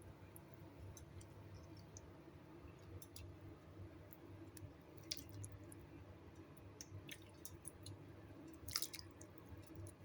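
Near silence: faint room hum with scattered small clicks and taps, and a brief, slightly louder cluster of clicks near the end.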